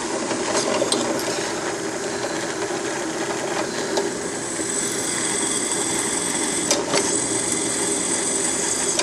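Drill press running steadily while a 3/16-inch bit drills holes through flat bar stock, with a thin high whine coming in about halfway and a few sharp clicks.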